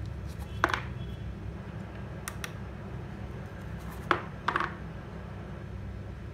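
Coins dropped one at a time into the slots of a cardboard coin box, each landing with a short clatter: one about half a second in, another about four seconds in followed by a quick second clink.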